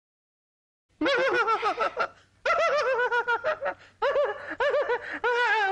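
High-pitched laughter in repeated rising-and-falling bursts, in three runs, starting about a second in after a silence.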